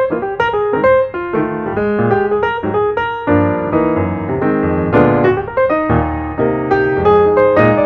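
Background piano music, a steady stream of notes and chords.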